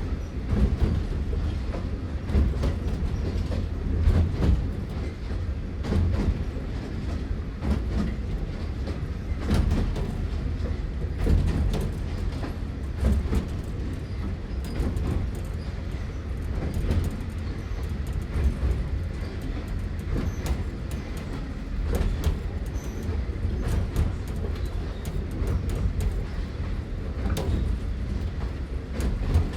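Small narrow-gauge steam train on the move, heard from inside its open cabin: a steady low rumble, with frequent irregular clicks and knocks of the running gear.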